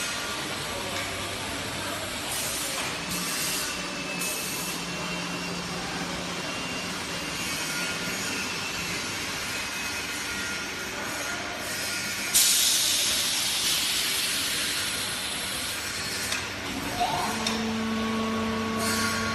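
Foam block compression and roll-packing machine running with a steady mechanical hum. Short bursts of hissing come a few seconds in, a louder hiss starts about twelve seconds in and lasts several seconds, and a steady motor hum starts near the end.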